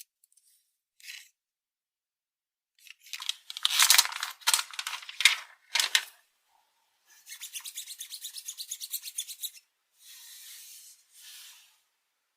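Phone box packaging being handled: several loud rubbing and tearing strokes, then a fast, even rasp of about eight pulses a second for a couple of seconds, and two soft brushing sounds near the end.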